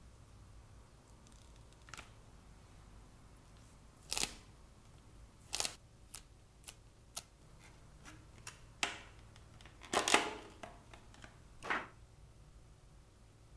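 Hands handling a phone camera lens protector kit: scattered sharp clicks, taps and short rustles as a peel-off sticker is pulled from its backing and pressed onto the phone's camera bump. The loudest cluster of clicks and rustling comes about ten seconds in.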